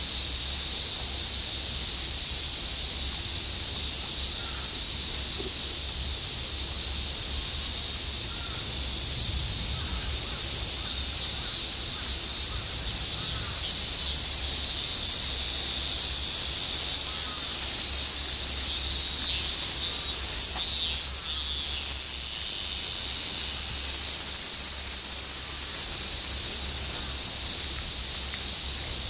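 A steady, high-pitched chorus of cicadas in the summer trees, with a low rumble underneath.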